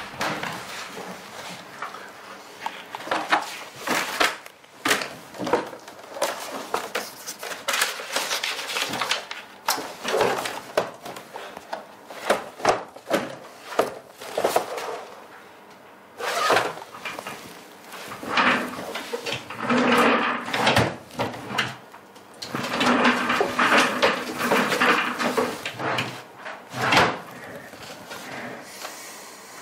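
Office desk handling: document folders and papers set down, shifted and leafed through, with repeated knocks and clatter like a desk drawer opening and closing.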